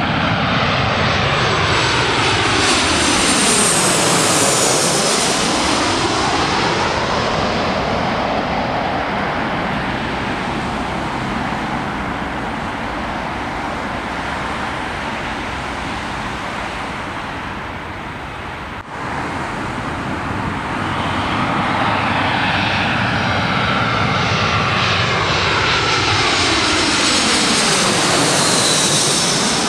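Twin-engine jet airliners on final approach passing low overhead, one after another. The jet noise swells as each plane passes, with a sweeping rise and fall in its tone and a falling high-pitched whine. An abrupt cut joins the two passes; the second is a British Airways Airbus A320.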